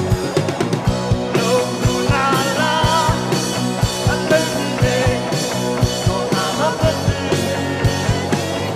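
Live band music with a steady drum beat and sustained bass, and a male singer's voice carrying the melody over it.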